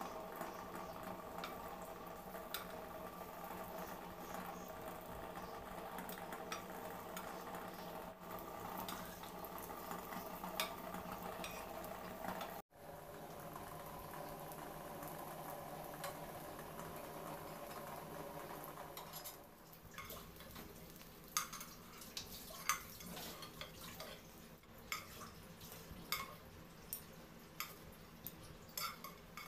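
Fritters frying in oil in a nonstick pan, with a steady hum under the sizzle for about the first two-thirds. In the last third come sharp clinks and taps of a metal spatula and a steel spoon against the pan as the fritters are turned and lifted out.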